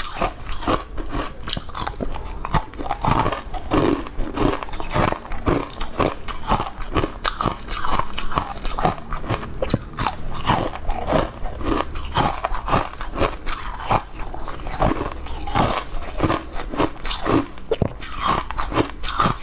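Sweet ice cubes bitten and crunched between the teeth, a dense run of crisp cracks with chewing in between.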